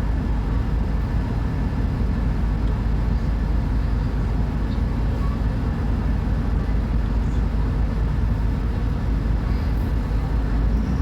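Diesel engine of a Mercedes-Benz O500U city bus, Euro V, with Voith automatic gearbox, running with a steady low rumble.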